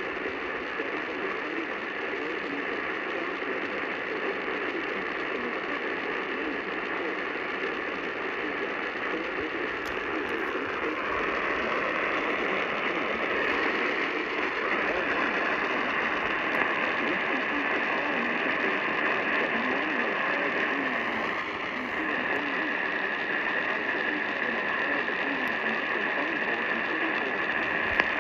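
AM radio tuned to WLW 700 kHz on weak reception: a steady hiss of static, with the station's Emergency Alert System tornado-warning relay barely coming through. The noise grows a little louder about eleven seconds in.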